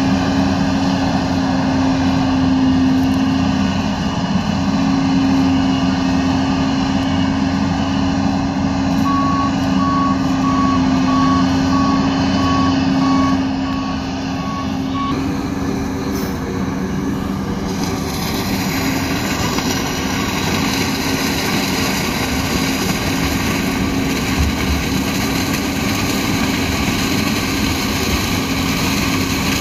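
New Holland CX 6.90 combine harvester running steadily under load while harvesting grain maize, a constant engine and machinery drone. For several seconds in the middle, an evenly spaced electronic beep repeats over it, then stops.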